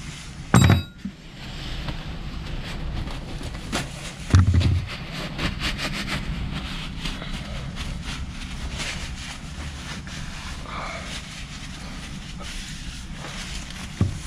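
Hands working on a marine gearbox: two loud, dull knocks, about half a second and about four and a half seconds in, and a smaller one near the end. Between them come light clicks and the scratchy rustle of a rag wiping oil off the gearbox casing, over a steady low rumble.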